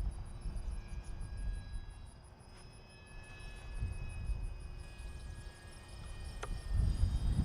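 Electric RC plane in flight: the thin, steady whine of its brushless motor and three-bladed propeller, heard from a distance, with wind rumbling on the microphone that grows stronger near the end.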